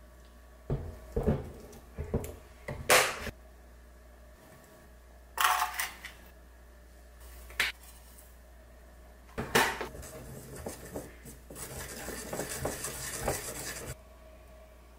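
Kitchenware clinking and clattering: a measuring spoon and utensils knocking against small ceramic bowls while a sauce is seasoned. A cluster of sharp clinks, a short scraping rattle, a few more single knocks, then a longer stretch of light rattling near the end.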